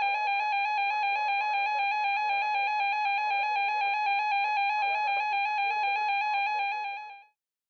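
Emergency Alert System attention signal: a steady, loud two-tone alert tone that holds for about seven seconds and then cuts off abruptly. It is the alert tone of a Required Monthly Test.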